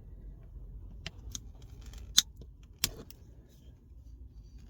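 Small metal staples being snipped and worked out of a gear stick gaiter's plastic surround with snips: a few sharp metallic clicks, the loudest about two seconds in.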